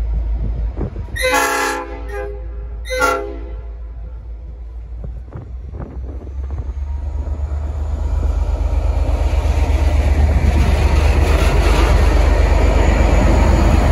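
Nathan P5 five-chime air horn on a V/Line N class diesel locomotive sounding two short blasts, the second shorter. The locomotive's diesel engine and train noise then grow steadily louder as the train gets under way and stays loud.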